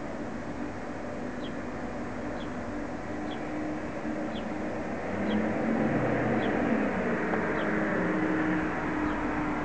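Mercedes-Benz S500L's V8 engine running as the car drives slowly past at low speed. The engine grows louder about five and a half seconds in as the car comes closest, then eases slightly near the end.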